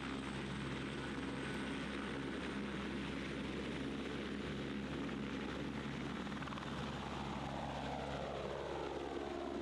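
Airbus AS350B3 (H125) helicopter's single turbine engine and rotor running steadily as it lifts off partway through. Near the end a set of falling tones sweeps down as it climbs away.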